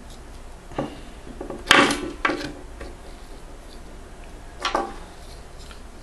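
Plastic clicks and knocks as a washing-machine motor's carbon-brush holder is handled and fitted together, a few separate ones with the loudest, sharpest click a little under two seconds in and another near the end.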